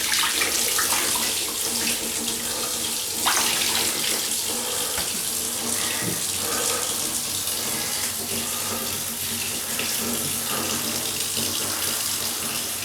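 Water running steadily from a kitchen tap, with a brief louder sound about three seconds in.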